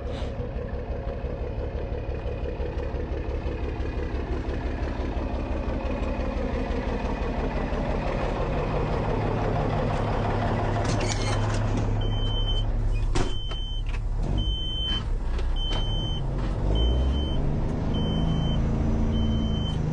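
Case excavator's diesel engine running steadily as the machine is manoeuvred, with a backup alarm beeping about once a second starting about twelve seconds in. A sharp metallic clank comes just after the beeping begins.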